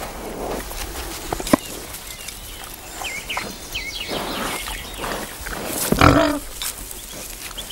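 Truffle pig snuffling and grunting as it roots with its snout in soil and leaf litter, with a sharp click about a second and a half in and a louder grunt about six seconds in.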